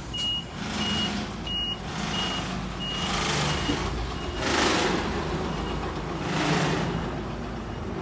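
A vehicle's reversing alarm beeping about twice a second, fading out about halfway through, over a low rumble with a few louder swells of noise.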